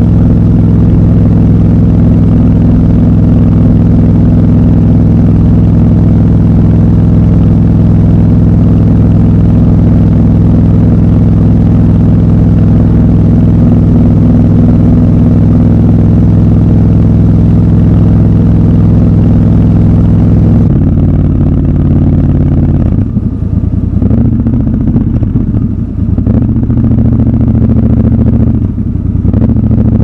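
Triumph Scrambler 1200 XC's parallel-twin engine running under steady throttle at a constant cruising speed. About two-thirds of the way through, the throttle closes and the engine note drops. After that the pitch rises and falls, with a few brief dips in loudness, as the bike slows.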